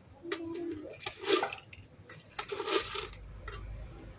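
Light clicks and rattles, with a louder cluster about two and a half seconds in, like small things clattering or being handled; no meow is heard.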